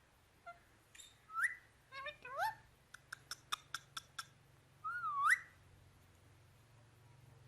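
A parrot whistling: a few short notes that slide upward, a quick run of short clicking notes, then one wavy whistle that dips and swoops up.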